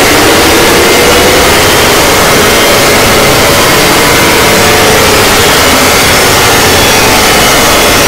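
Emergency alert alarm audio deliberately made louder and distorted, so that it comes out as a loud, steady wall of harsh static with faint wavering tones buried in it.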